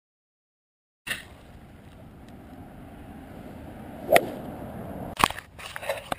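A golf club strikes a ball about four seconds in, a single sharp crack. It is followed by two smaller sharp clicks over the next two seconds, over steady outdoor background noise that cuts in about a second in.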